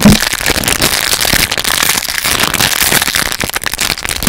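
Close-up crinkling and crackling of a foil blind-bag wrapper being worked open by hand right at the microphone, a dense, unbroken crackle.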